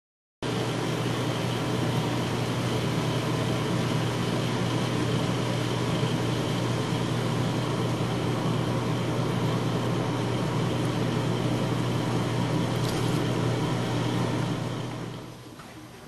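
Steady mechanical hum of a household machine, a low drone with a constant hiss over it, dropping away about fifteen seconds in.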